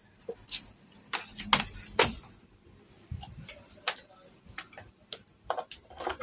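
Scattered light clicks and taps, about a dozen at uneven intervals, from things being handled on the workbench.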